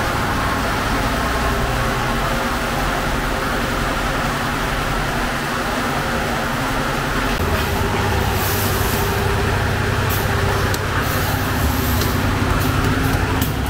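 Steady rumbling background din, with a quick run of sharp clicks near the end.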